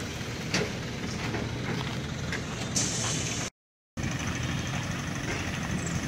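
Mobile crane diesel engines running steadily, with a few short knocks. The sound cuts out for a moment just past halfway, then carries on.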